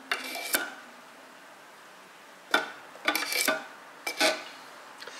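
Several short knocks and clinks of a kitchen knife against a plastic food processor bowl. They come in a few separate clusters, with quieter gaps between.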